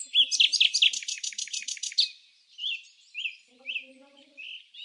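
A small songbird singing: a rapid trill of about a dozen sharp, high notes lasting under two seconds, followed by several separate short chirps.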